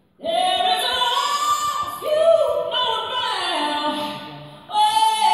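A song with a woman singing long held notes over sparse accompaniment. It starts just after a brief silence, and a new phrase comes in sharply near the end.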